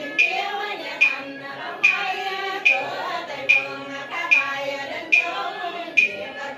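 Cao Đài funeral chanting: voices intoning a ritual prayer in a sung style, kept in time by a sharp percussion strike a little more than once a second.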